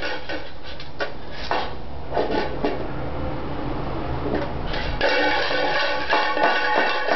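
A metal can with caps inside, shaken and knocked by a baby's hands. It gives quick ringing clanks, then a duller rattling and scraping stretch from about one to five seconds in, then quick ringing clanks again.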